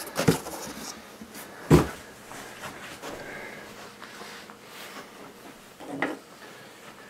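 Cardboard boxes being moved and set down on a wooden table: a few dull knocks, the loudest about two seconds in and another near six seconds.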